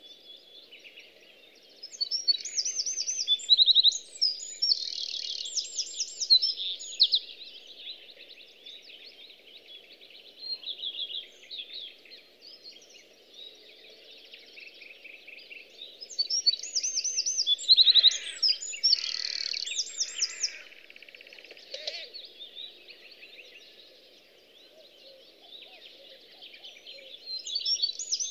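Songbirds singing: loud phrases of rapid trills and quickly repeated high notes, one a few seconds in and another about seventeen seconds in, with quieter song between, over faint steady low background noise.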